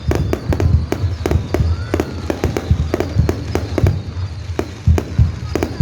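Fireworks going off in a rapid, irregular string of sharp bangs, several a second, over a low rumble.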